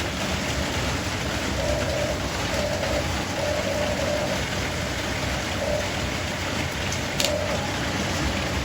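Small electric motor of a radio-controlled excavator whining in short spells, over a steady rushing noise, with one sharp click about seven seconds in.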